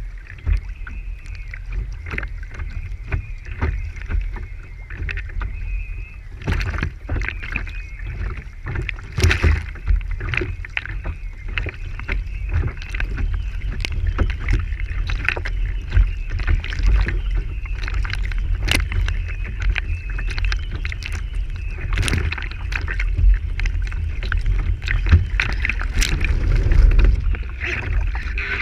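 Water slapping and splashing against the hull of a Lintel IOM radio-controlled sailing yacht under sail, heard from a camera mounted on its stern deck. Many sharp slaps ride over a constant low rumble, and they grow a little louder near the end as spray comes over the deck.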